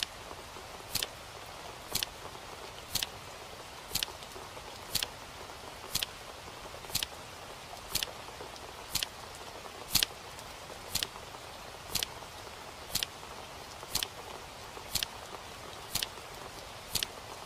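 A clock ticking steadily once a second, with sharp, crisp ticks over a faint steady hiss.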